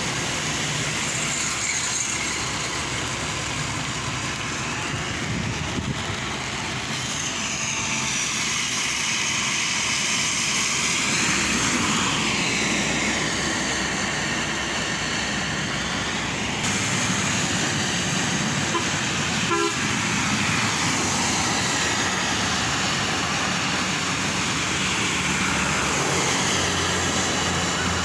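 Vehicles passing on a rain-soaked road, tyres swishing through water under steady rain noise. A short horn toot sounds about two-thirds of the way through.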